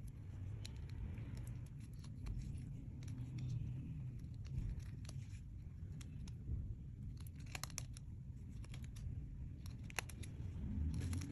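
Slime being worked by hand, with scattered sticky clicks and small crackles over a low handling rumble.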